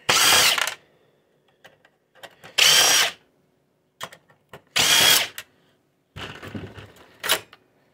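Electric screwdriver running in three short bursts of about half a second each, backing screws out of an inkjet printer's sheet-metal shield. Near the end there is some clatter and one more brief burst.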